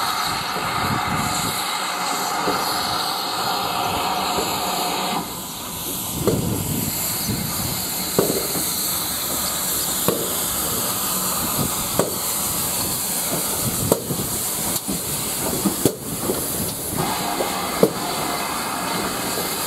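GWR Manor class 4-6-0 steam locomotive No. 7822 hissing loudly with steam for about five seconds, then moving slowly along the platform with repeated knocks and clanks from the engine and wheels. The steam hiss starts again near the end.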